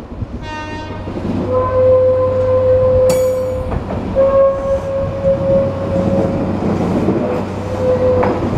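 JR Shikoku 8600 series two-car electric train passing slowly at close range: wheels rumbling on the rails, with a sharp clack about three seconds in. A short buzzing tone comes near the start, then a steady mid-pitched whine that holds for a couple of seconds at a time, breaks off, resumes slightly higher and fades near the end.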